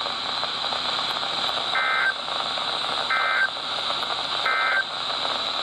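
Three short, identical EAS/SAME digital data bursts (warbling two-tone squawks) about 1.3 s apart over steady radio hiss on a NOAA Weather Radio broadcast. Their shortness marks them as the end-of-message (EOM) code that closes an alert.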